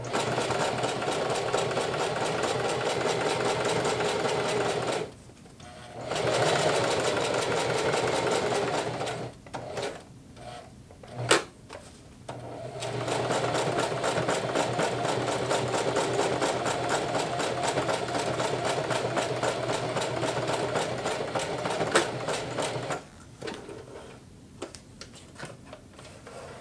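Singer Heavy Duty sewing machine stitching a tight zigzag bar tack through nylon webbing and pack cloth, running in three spells with short pauses, the last and longest about ten seconds, stopping near the end. Two sharp clicks come in between.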